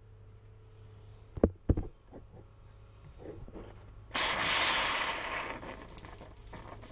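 Boat freshwater line spitting a sudden hiss of air and the last pink antifreeze about four seconds in, fading over about two seconds, after two sharp knocks; the water pump is pushing air because the antifreeze has run out.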